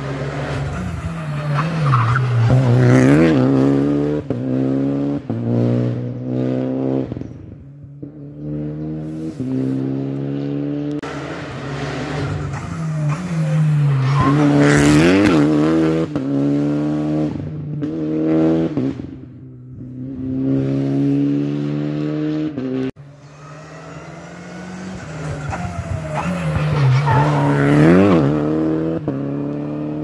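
Rally cars at racing speed passing close by, three in turn. Each engine climbs and drops in pitch through quick gear changes, and its pitch swoops down as it goes past.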